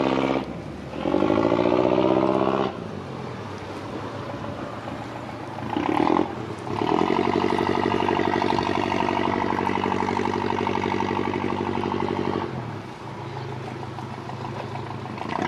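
A very noisy motor cruiser's engine revved up and down in bursts. A short surge near the start and another about six seconds in are followed by a long burst held high for about six seconds, dropping back to a lower running note between them and rising again at the end. This is a quick, itchy throttle while the boat manoeuvres.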